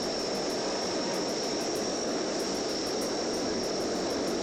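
Aero Spacelines Super Guppy Turbine's four Allison 501 turboprop engines running as the aircraft rolls along the runway: a steady, dense engine and propeller drone with a thin steady high whine over it.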